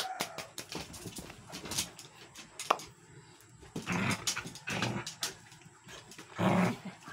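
Two dogs play-fighting and jumping up close by: scuffling with many sharp clicks and taps, and three louder rough bursts about four, five and six and a half seconds in.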